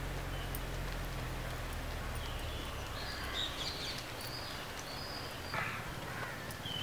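Outdoor ambience with birds calling: a steady background hiss, with a run of short high calls from about two to five and a half seconds in and another call near the end.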